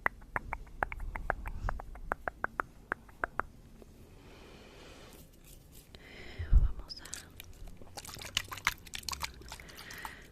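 Close-miked ASMR mouth sounds: a run of sharp, wet clicks, then a soft breath, one low thump about six and a half seconds in, and a denser cluster of clicks near the end.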